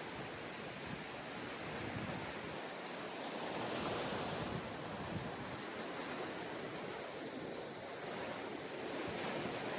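Ocean waves washing onto a sandy beach, a steady surf wash that swells and eases gently, with some wind on the microphone.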